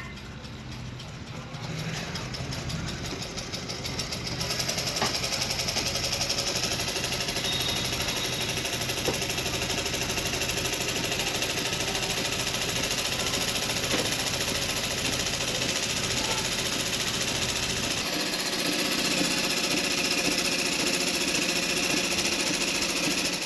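Jaxi JX-38 sewing machine running at speed, a rapid, even stitching rattle. It builds up over the first few seconds, runs steadily, and shifts in tone about three-quarters of the way through.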